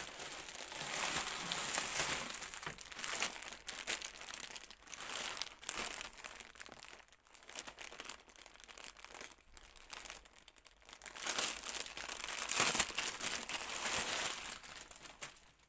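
Clear plastic bag around a new towel crinkling and rustling as hands handle it, loudest a little before the end.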